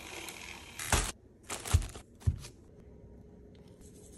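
Kitchen food-prep handling: a short rush of noise, then several sharp knocks and heavy thumps. Near the end, a spice grinder twisted over the toast gives a faint rasping.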